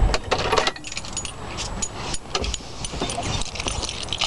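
The 1988 Nissan Hardbody's engine cuts off at the start, followed by a series of irregular light clicks and jingling, like keys jangling.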